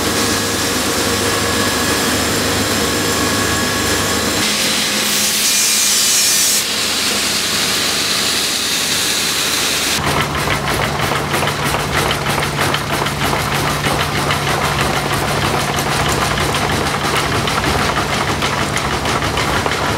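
Rail-grinding train at work: its rotating grinding stones rasp against the rails with a harsh continuous hiss over the running machinery. The sound shifts abruptly a few times, and from about halfway it is a dense fast rasping over a steady low hum.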